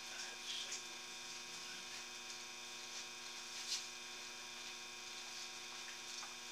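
Taig lathe's motor running steadily at about 1400 RPM with the spindle turning free, not cutting: a steady hum. A few faint rustles and taps are heard over it, one about half a second in and one near the middle.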